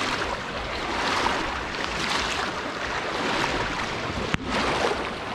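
Floodwater rushing and churning over a road in a steady, dense rush, with a brief break about four seconds in.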